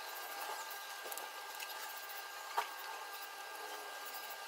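Corrugated cardboard being handled and pressed into place: soft rustling with a few small ticks and one sharper click about two and a half seconds in, over a faint steady high tone.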